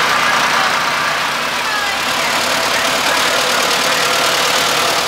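Antique Farmall tractor engine running steadily as the tractor drives past, with another tractor's engine pulling away.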